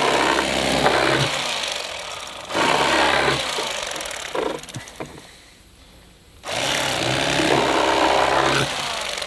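Cordless electric fillet knife running while it trims a skinned catfish fillet, a steady motor with its blades working. It runs in spells: on at the start, a short break about two seconds in, fading out around four and a half seconds, then starting again around six and a half seconds in.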